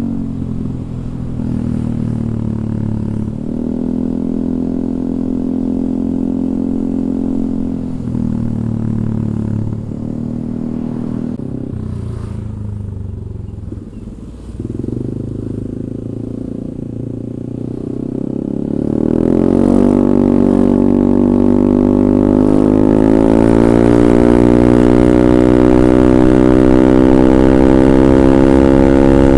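Yamaha Aerox 155 single-cylinder scooter engine through a DSM Cobra racing exhaust with a 38 mm inlet, running at fairly steady low revs with a few small throttle changes. About two-thirds of the way through the note climbs steadily and holds high to the end.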